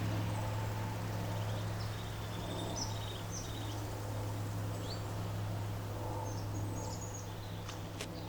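Steady low hum of chairlift machinery, with small birds chirping now and then, high and brief, through the middle of the stretch.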